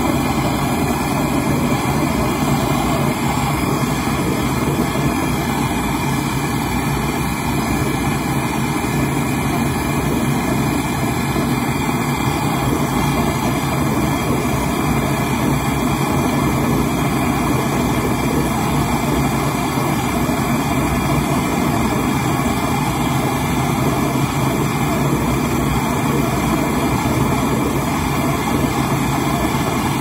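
Gas brazing torch flame burning steadily with a continuous rushing hiss as it heats the pinched-off copper process tube of a refrigerator compressor to braze it shut, the final sealing step after the refrigerant charge.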